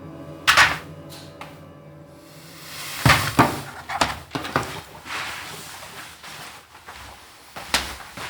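Drama soundtrack: faint background music, then a series of sharp knocks and thuds, one about half a second in, a cluster of several around three to five seconds in, and one more near the end.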